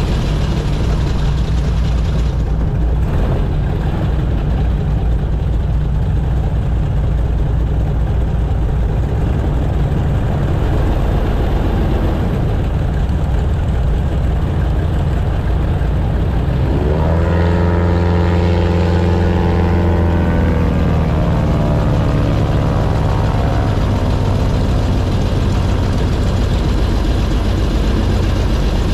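Airboat engine and propeller running loud and steady under way. About two-thirds of the way through the engine note rises strongly for a few seconds, then eases off.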